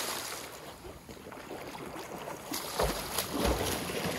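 Lake water churning and fizzing where a person has just jumped in, dying away over the first second, then a few splashes from about three seconds in as the swimmer surfaces.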